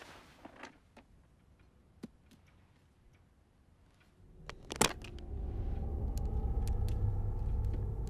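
Faint clicks and taps as the carved wooden game box is handled, then a sharp click about five seconds in as the box opens. After the click a low, rumbling swell rises and holds to the end.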